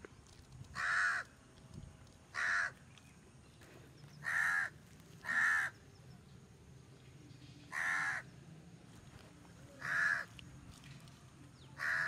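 A crow cawing repeatedly: about seven harsh, separate caws, each about half a second long, one every second or two.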